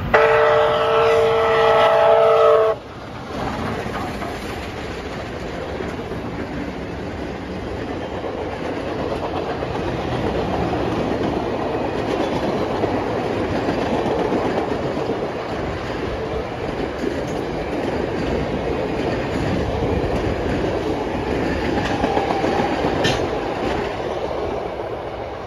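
The whistle of Canadian Pacific 2816, a 1930 Hudson steam locomotive, sounds one chord of several notes for nearly three seconds and cuts off sharply. Then comes the steady rumble and clickety-clack of its passenger cars rolling past.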